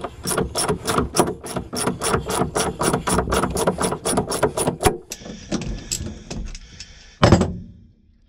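Ratchet wrench clicking in an even rhythm, about four clicks a second, as it turns a bolt on a boat's engine mount; the clicking stops about five seconds in. A soft rustle follows, then a single knock a little after seven seconds.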